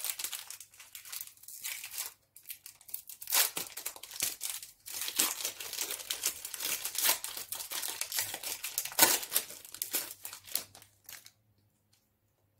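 Foil wrapper of a Pokémon trading card booster pack crinkling and being torn open by hand, a dense run of crackles that stops near the end.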